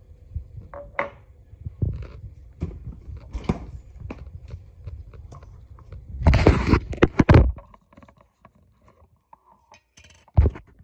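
Handling noise: scattered clicks and knocks of things moved about on a stone kitchen countertop, a loud rubbing rustle against the phone's microphone about six seconds in, then a sharp knock near the end.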